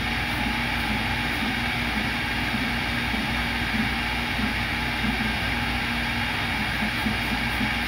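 CNC router spindle running steadily with its dust extraction, drilling holes in a copper-clad circuit board: a continuous, even machine whir.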